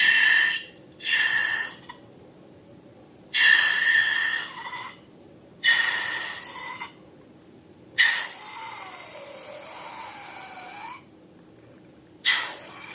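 Air hissing out of a balloon's neck in six short, sudden releases, each with a squeaky edge. A longer release near the end carries a wavering squeal.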